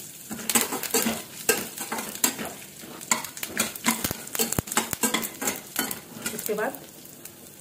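Stainless-steel spatula stirring and scraping through peanuts, dals and curry leaves in a stainless-steel kadai of hot oil. Repeated clinks and scrapes of metal on metal sound over the sizzle of the frying tempering for upma.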